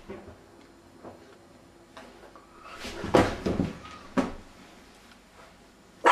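Bumps and knocks against wooden kitchen cabinets and the floor as a person slumps down to sit on the floor, a clattering cluster about three seconds in, then a sharp knock, and a louder sharp knock at the very end.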